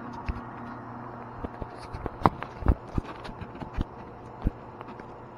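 Two-barrel FBD Slurpee frozen-drink machine running with a steady low hum, its beater turning as a barrel is drained. Irregular sharp knocks and clicks come through the middle few seconds, the loudest a little over two seconds in.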